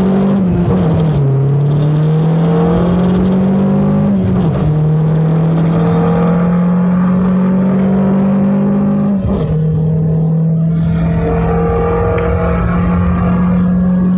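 Nissan Sentra's QR25 2.5-litre four-cylinder engine under hard acceleration, pulling through the gears: the engine note climbs in each gear and drops sharply at three upshifts, about a second, four and a half seconds, and nine seconds in.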